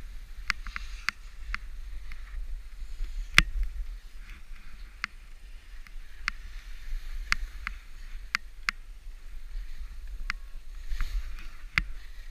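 Scattered sharp clicks and knocks at irregular intervals, one louder knock a little over three seconds in, over a low wind rumble on the microphone.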